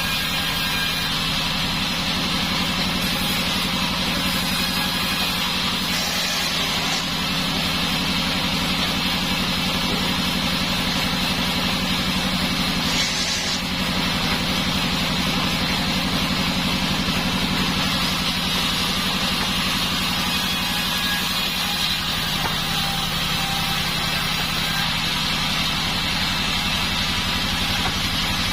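Band sawmill running steadily: a continuous machine drone with a steady hiss over it.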